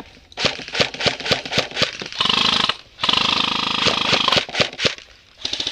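Airsoft guns firing: a string of single shots, then two full-auto bursts, a short one and a longer one of about a second and a half, with a brief burst near the end.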